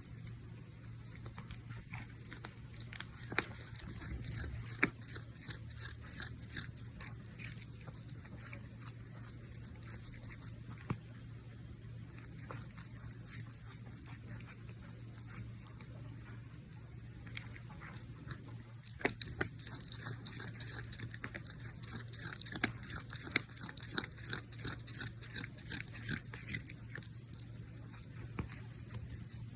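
A domestic cat grooming, biting and chewing at its own claws: an irregular run of small wet clicks and crunches, picked up close to the microphone.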